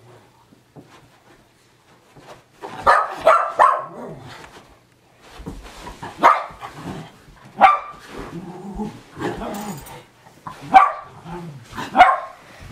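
Schnauzer barking in short, sharp barks, three in quick succession about three seconds in and then one every second or two, with low growling between them while it play-fights with a person.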